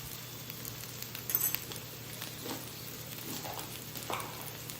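Potatoes sizzling softly in oil in a non-stick skillet, with one sharp clink of a utensil about a second and a half in and a few softer ticks after it.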